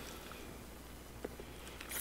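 Quiet room with a low steady hum, one faint click a little past halfway, and soft chewing sounds of someone eating roast chicken near the end.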